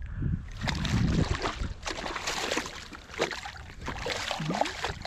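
Hooked black sea bass thrashing and splashing at the water's surface beside the boat as it is reeled in, a run of irregular splashes.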